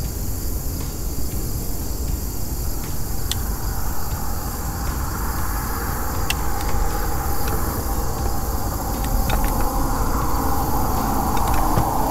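Steady outdoor background: a low rumble with a high, steady insect drone over it and a few faint light clicks.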